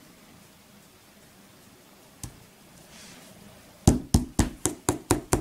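A run of about eight sharp knocks on a tabletop, coming faster and faster, near the end, after a single faint click about two seconds in.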